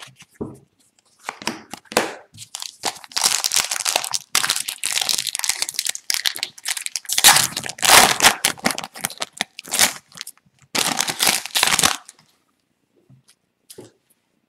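Foil wrapper of an Upper Deck hockey card pack being torn open and crinkled by hand, with loud crackling on and off, stopping about two seconds before the end.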